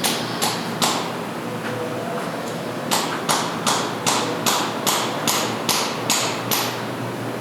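Sharp metallic clicks with a bright ring, three in the first second and then, after a short pause, a steady run of about two and a half a second, like hand tools being handled.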